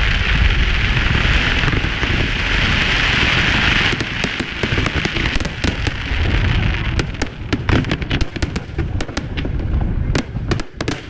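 Aerial fireworks going off: a dense hissing crackle for the first five seconds or so, then a rapid string of sharp pops and bangs over a steady low rumble of bursts.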